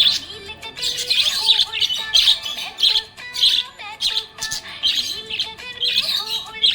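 Budgerigar chirping and warbling in repeated bursts of quick, high twittering, about one burst a second.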